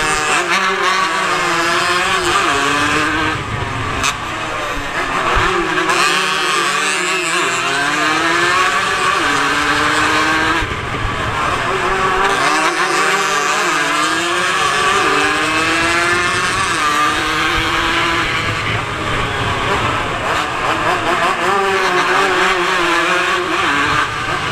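150cc racing motorcycles accelerating hard along a street circuit, engine pitch climbing and then dropping at each upshift, again and again as bikes come past.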